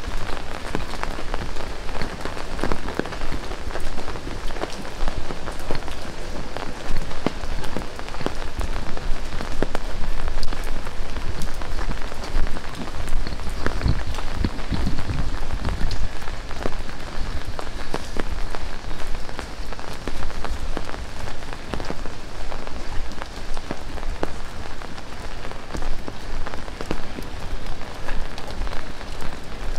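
Heavy rain falling steadily, a dense hiss full of sharp close drop and drip hits. About halfway through, a low rumble swells for a couple of seconds.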